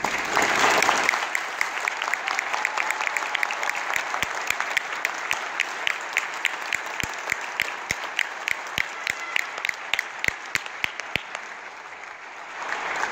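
Audience applauding, loudest at the start and tapering off near the end. From about four seconds in, sharp single claps from someone close by stand out over the rest.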